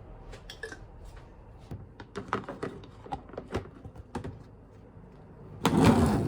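Kitchen handling noises: a string of small taps and clicks, then a louder clatter lasting about half a second near the end.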